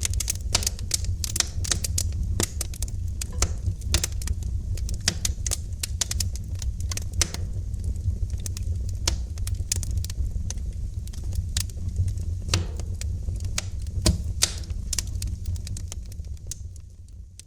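Wood fire crackling in a fireplace: irregular sharp pops and snaps over a steady low rumble of the burning fire, fading down near the end.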